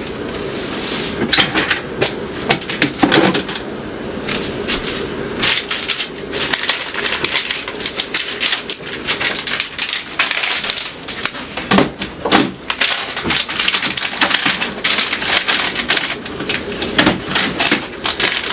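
Repeated knocks, clicks and clatter of hard objects being handled and set down, with rubbing or scrubbing noise between them.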